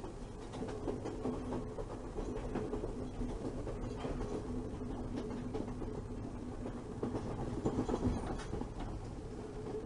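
Passenger train running at speed, heard from inside a carriage: a steady rumble of wheels on the track with a low hum and scattered light knocks.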